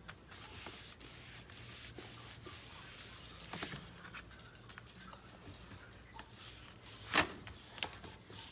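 Paper and card being handled and rubbed on a work surface: soft rustling with scattered light taps, and a sharper tap about seven seconds in.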